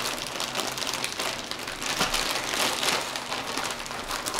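White plastic poly mailer bag being torn open and crinkled by hand, a dense run of crackling rustle with no pauses.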